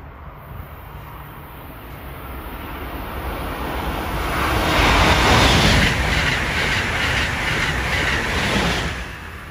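Amtrak Acela Express electric high-speed trainset passing at speed. The noise swells as it approaches, is loudest about halfway through, and carries rhythmic wheel clicking over the rail joints. It drops off near the end as the rear power car goes by.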